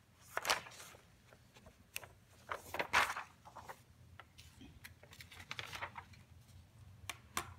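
Sheets of paper being handled and slid across a desk: a string of short rustles, the loudest about half a second and three seconds in.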